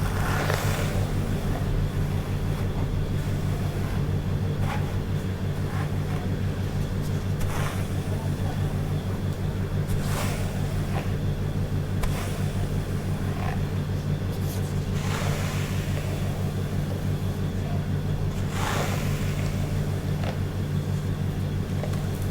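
Hair being brushed: a soft swish every few seconds over a steady low hum.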